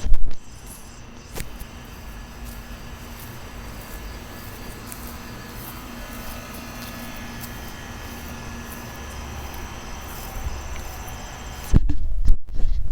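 Outdoor night ambience: a steady chorus of insects, crickets among them, chirping over a low steady hum. A loud low rumble at the very start and another, longer one about twelve seconds in.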